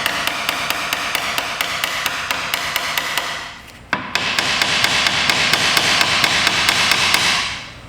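A hand-held power tool run in two bursts with a short pause between, making a steady hiss with rapid, even clicking at about six clicks a second.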